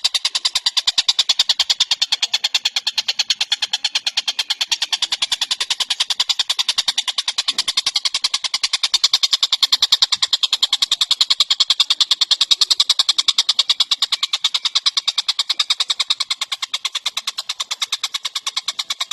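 Tengkek cililin, a small kingfisher, calling in a long unbroken run of rapid, sharp high notes, several a second and evenly spaced.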